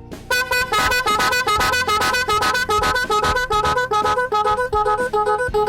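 A pair of 12 V snail horns driven by an 8-tone echo horn module, playing one of its patterns: a rapid run of short notes, about five a second, stepping up and down in pitch with the low and high horns sounding together. It starts a fraction of a second in.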